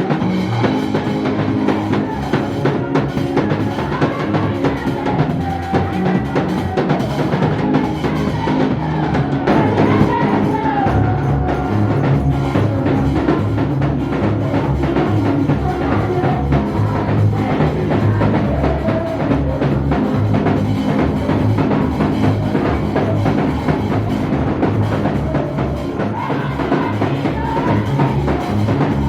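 Music with a drum kit keeping a steady beat, bass drum and snare under sustained instrument tones.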